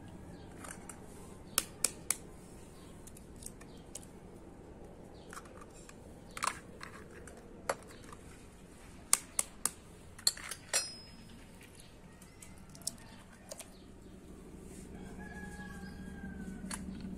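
Eggs tapped and cracked open over a plastic mixing bowl: sharp clicks, three in quick succession early on and a cluster of several about nine to eleven seconds in. A rooster crows in the background near the end.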